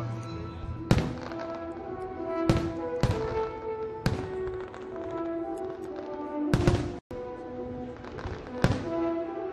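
Fireworks shells bursting in about six sharp bangs, irregularly spaced, over music with long sustained notes, recorded on a mobile phone.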